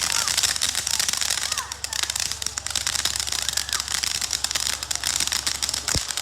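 Consumer firework fountains going off: a dense, continuous crackle of many tiny pops.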